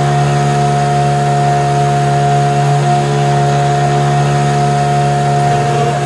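A small engine running steadily close by at a constant speed, its pitch unchanging throughout.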